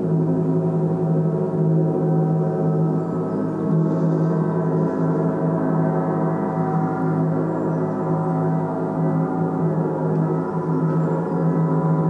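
A gong sounding continuously in a dense, steady wash of many overlapping tones, with no separate strikes standing out.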